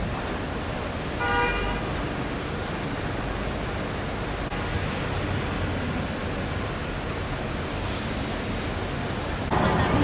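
Steady road traffic noise from cars at a terminal curb, with one short car-horn toot about a second in. The sound gets louder just before the end.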